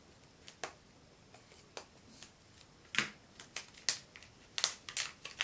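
Plastic wrapper of a toy surprise egg crackling as it is torn and peeled off the plastic capsule by hand: scattered sharp crackles, coming thicker over the last two seconds.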